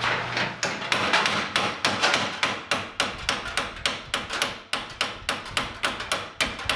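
Rapid, even hammer blows, about four a second, striking a suspension part on a Cobra kit car to break it loose.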